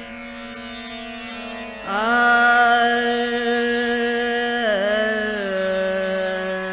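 Background music in an Indian classical style: a steady drone, joined about two seconds in by a louder held melody note that bends down and settles lower near the end.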